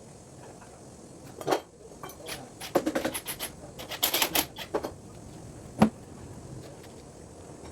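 Irregular knocks and short runs of clattering from hard objects being handled, ending in one sharp single knock.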